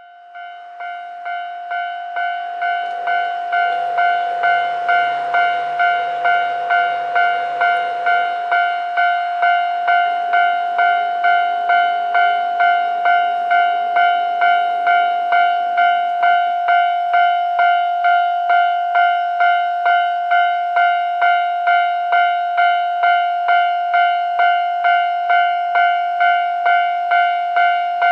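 Japanese railway level-crossing alarm ringing its warning: a steady, even ding-ding of one ringing tone, about two strikes a second, growing louder over the first few seconds and then holding level. It signals that the crossing is closing for an approaching train.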